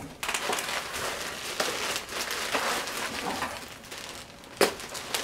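Bubble wrap crinkling and crackling as it is handled and pulled around a boxed model train car, with a sharp knock near the end.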